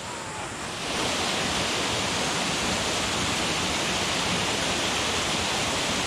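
Small mountain-stream waterfall cascading into a rocky pool: steady rushing water, a little louder after the first second.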